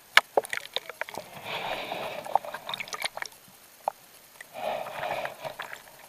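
Seawater slapping and sloshing against a waterproof action-camera housing bobbing at the surface: sharp slaps and knocks, with two longer washes of water about a second and a half and four and a half seconds in.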